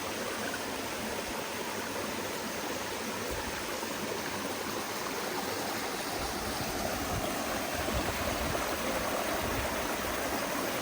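Rushing river water flowing over rocks, a steady churning rush that grows a little louder and fuller about halfway through.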